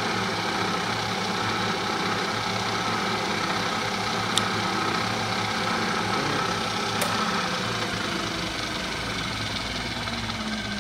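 Bridgeport J-Series vertical milling machine running, its spindle motor and power quill feed humming steadily as the quill feeds down. Two sharp clicks come a few seconds apart midway through.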